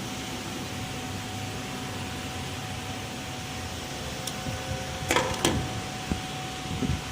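Steady hum of workshop machinery with a thin, steady whine, and a few sharp clicks and knocks about five seconds in.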